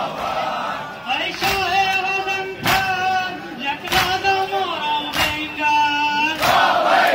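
A single voice sings a noha lament in long held notes. Sharp unison chest-beating strikes of the matam fall about every second and a quarter, and the crowd's loud chanting comes back near the end.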